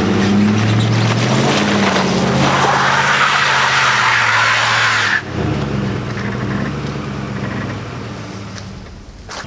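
Ford F-150 pickup engine revving up and down under load, with a loud rushing hiss of tyres spinning in snow, the truck in two-wheel drive because its four-wheel drive is not working. The revving and hiss cut off suddenly about five seconds in, and the engine then runs on more quietly, fading away.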